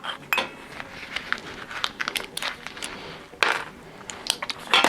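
Irregular metallic clicks and clinks as thin stainless steel sheet metal is worked with hand tools, with a louder clack about three and a half seconds in.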